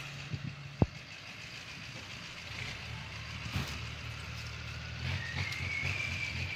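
Pickup truck towing a fifth-wheel travel trailer, its engine running low and steady as it crawls along a dirt trail, with a sharp knock about a second in. A thin, steady high tone joins about five seconds in.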